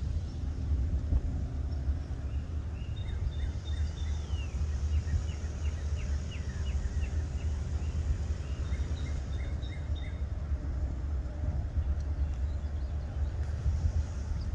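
Wind buffeting the microphone in a steady low rumble, with birds chirping in a quick series of short high notes and downward-sliding calls from about three to ten seconds in.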